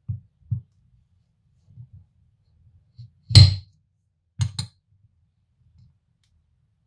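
A knife cutting through a hard-shelled, toffee-caramel-filled chocolate truffle on a plate: a few soft knocks, then one loud crack about three and a half seconds in as the blade breaks through the shell, followed a second later by two quick sharp clicks.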